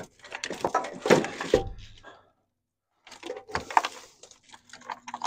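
Metal clinks, scrapes and rattles of a wrench working a ground-wire nut loose in a truck's engine bay, in two bouts with a short pause of about a second between them.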